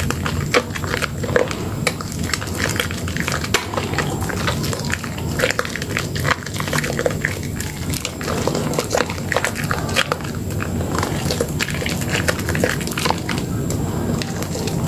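Wet squelching and crackling of lather as hands squeeze and knead a soaked bar of Dermythol Green soap in a basin of foam, a dense run of short squishes and pops.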